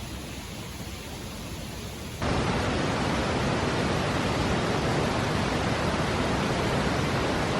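Steady rushing noise with no distinct events. It jumps abruptly louder and fuller about two seconds in, then stays steady.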